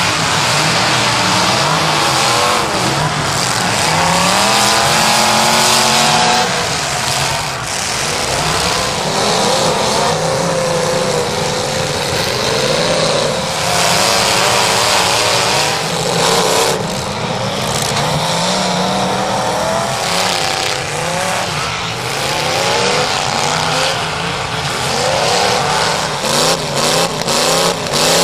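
Several demolition derby cars' engines revving hard at once, their pitch rising and falling as they race.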